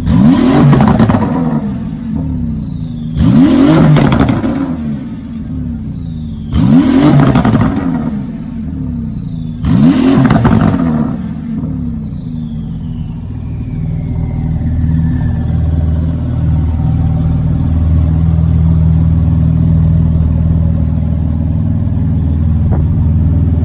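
Porsche 911 GT2 RS twin-turbo flat-six engine blipped four times, about three seconds apart, each sharp rev followed by a high turbo whistle that falls slowly in pitch as it spools down. After that the engine settles into a steady low drone.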